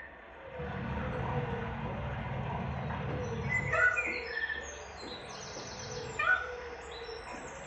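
Birds chirping and calling in many short, quick rising and falling notes, loudest about four and six seconds in, over a low rumble during the first three seconds.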